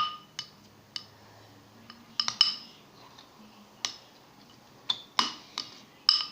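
A utensil clinking against the pot while a glue-and-toothpaste slime mixture is stirred: about a dozen irregular, sharp clinks, each with a short ring.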